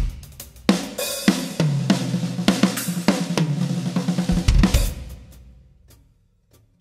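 Acoustic drum kit played during a soundcheck: a few separate hits, then a busy run of snare, tom and bass-drum strokes with cymbal crashes. It stops about five seconds in and the cymbals ring out and fade.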